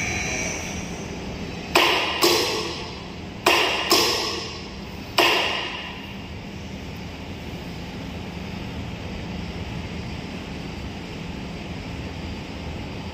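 A steady motor sound, most likely the electric scissor lift's drive, stops within the first second. Then five sharp metal clanks come over about four seconds, each ringing briefly, and a steady low hum remains.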